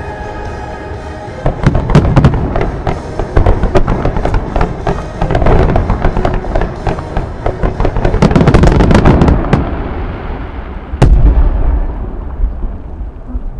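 Fireworks bursting in a rapid barrage of bangs and crackling, densest around eight to nine seconds in, then one last heavy boom about eleven seconds in before the sound fades away. Music plays underneath at the start.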